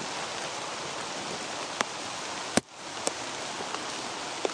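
Steady rain falling on dense leafy undergrowth, a constant hiss, with a few sharp taps, the loudest just past halfway.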